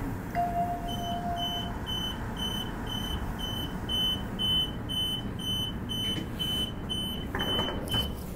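Door-warning beeper on a Transperth Bombardier/Downer electric multiple-unit train at a station stop: a high beep repeated about twice a second, some fifteen times, over the train's steady hum. A lower tone sounds for about a second near the start, and a short burst of noise comes near the end.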